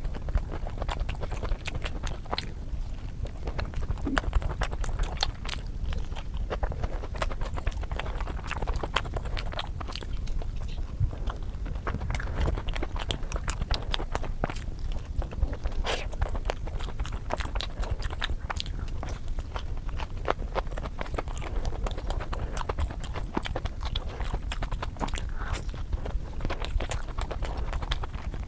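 Close-miked eating sounds: chewing and crunching of street food, full of quick sharp mouth clicks, over a steady low rumble.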